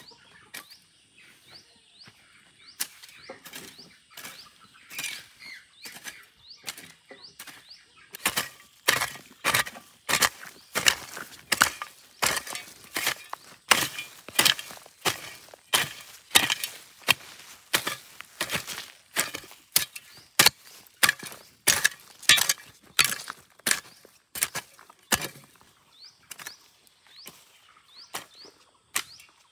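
A run of sharp knocks, one or two a second, getting much louder about eight seconds in. Birds chirp faintly during the first several seconds.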